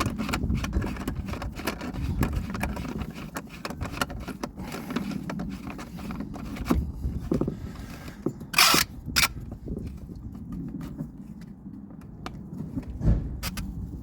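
Plastic pipe fittings and a drain valve being handled and pushed together: scattered clicks, taps and knocks over a low rumble, with a short loud rush of noise about two-thirds of the way through and a sharp knock near the end.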